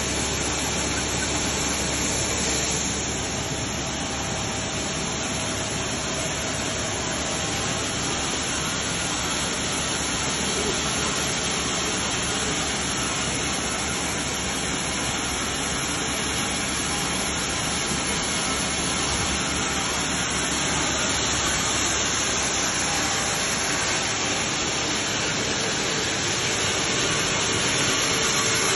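Steady machinery noise of a running belt-conveyor line carrying beans: an even rushing hiss with no distinct beats or tones.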